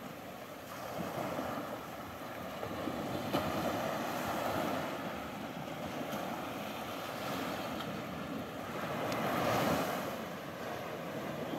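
Small sea waves breaking and washing up a sandy beach, the surf rising and falling as each wave comes in.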